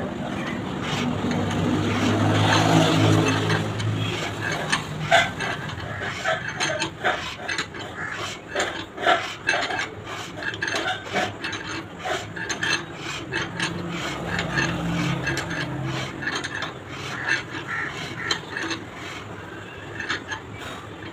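Hand-turned boring tool cutting the new bush in the steering spindle bore of a Mahindra 575 DI tractor's front axle: irregular rasping metal scrapes and clicks as the handle is worked round. A low drone swells and fades in the first few seconds.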